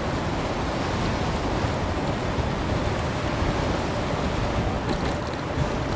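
Steady rush of wind buffeting the microphone while riding an electric bike at speed.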